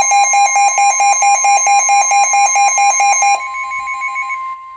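NOAA Weather Radio's steady 1050 Hz alert tone, with a loud, rapidly pulsing electronic alarm beep over it. The beeping stops about three and a half seconds in, leaving the steady tone alone.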